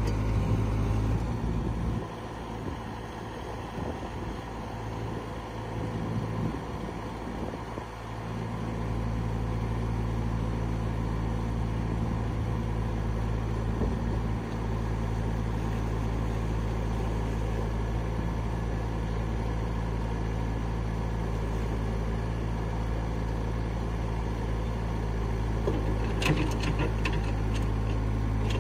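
Caterpillar 306 mini excavator's Mitsubishi 4M40 four-cylinder diesel running steadily while the machine tracks and works its hydraulics. About two seconds in the sound drops and wavers for several seconds, then steadies again; a few sharp knocks come near the end.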